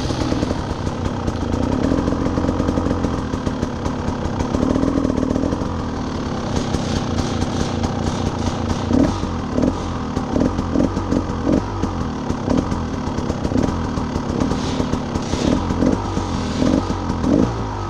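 Two-stroke dirt bike engine running at low revs with a wavering pitch, then a string of short, sharp throttle blips through the second half.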